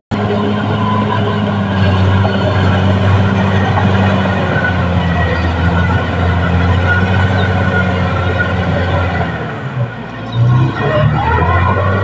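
Caterpillar D6R XL bulldozer's diesel engine running steadily under load, with the clatter of its steel tracks as it works along the hillside cut. About ten seconds in the engine note drops briefly, then picks up again.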